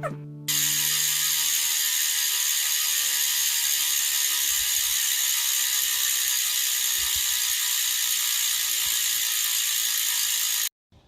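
Bicycle rear-hub freewheel ratcheting in a fast, steady buzz as the rear wheel spins freely. It starts and cuts off abruptly.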